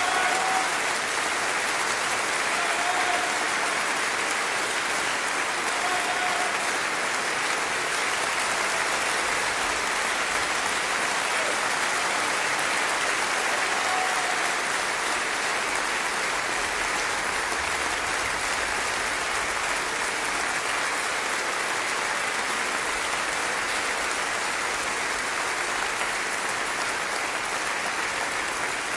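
Large theatre audience applauding steadily, sustained clapping for the cast's bows at an opera curtain call.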